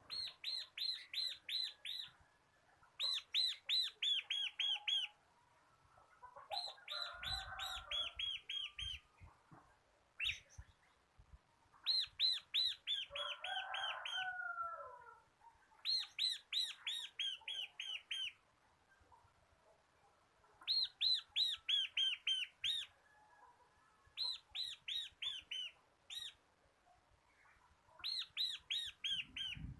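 Bar-winged prinia (ciblek) singing: repeated bursts of quick, high, evenly spaced notes, each burst about two seconds long, coming every few seconds. Softer, lower chirps come between the bursts.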